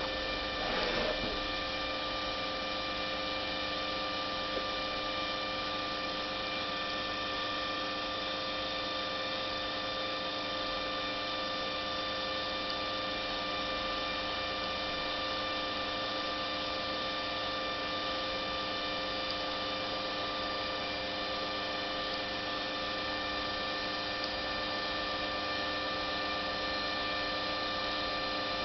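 Steady electrical hum made of several held tones, with no change in pitch or level. A brief soft noise comes about a second in.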